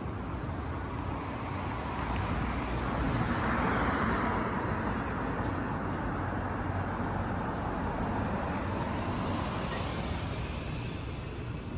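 Road traffic: a car passing on a street, growing louder to its peak about four seconds in and then fading away.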